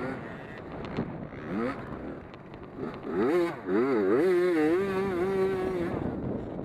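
Race car engines on track, several at once, rising and falling in pitch as the cars accelerate and lift through the turns and go past.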